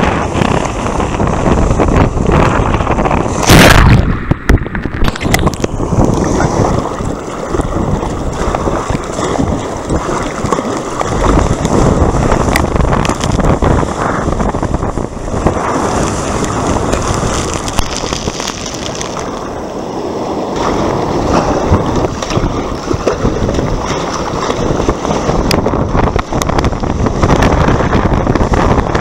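Wind buffeting the microphone over water splashing and sloshing against a small boat's hull as it moves through choppy sea, with a loud burst about three and a half seconds in.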